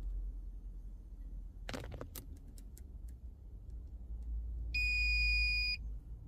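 Electronic buzzer of a homemade eye-closure alarm giving one steady high beep about a second long, about three-quarters of the way through: the alarm going off for closed eyes. It comes after a few sharp clicks a little before the middle, over a faint low hum.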